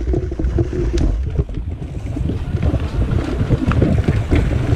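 Wind buffeting the microphone of a camera mounted on a mountain bike, over the rumble of tyres rolling on a dirt trail, with the bike rattling and clicking over bumps.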